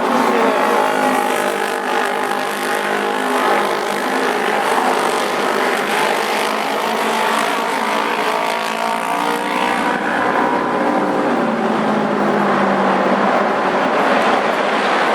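Auto-race motorcycle engines running around the track, several engine notes rising and falling in pitch as the bikes pass, with one note sliding down about two-thirds of the way through.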